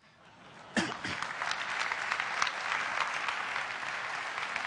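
Large audience applauding. The clapping builds faintly, then comes in fully about a second in and holds steady.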